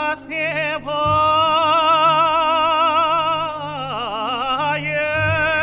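Operatic singer holding a long high note with wide vibrato over a soft orchestral accompaniment. About four seconds in, the voice dips and climbs back in a short wavering run, then holds the note again.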